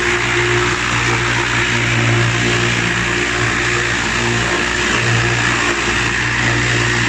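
Stainless steel meat bowl cutter running: a steady motor hum with the whir of its high-speed chopping blades and turning bowl, as it chops meat into a fine paste.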